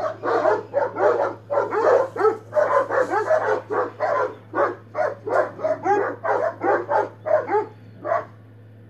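Several dogs barking hard at each other through a metal gate, a fast run of barks about three a second that stops about eight seconds in. A steady low hum runs underneath.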